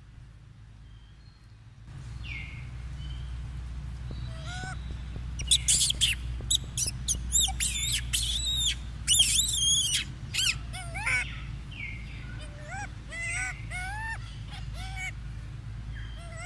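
Macaque monkeys calling: a string of high, arched squeals and coos, densest and loudest in the middle, with more spaced calls near the end, over a steady low rumble.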